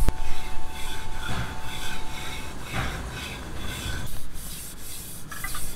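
Repeated back-and-forth rubbing strokes on the surface of a wooden cutting board, after a sharp click at the start.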